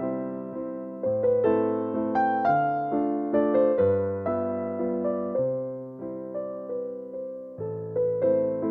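Background piano music: a gentle melody of struck notes, about two a second, each dying away over a slowly changing bass line.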